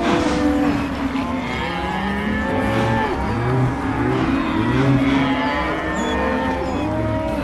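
Stomach growling: many overlapping low growls and gurgles that bend up and down in pitch, layered into a continuous rumbling.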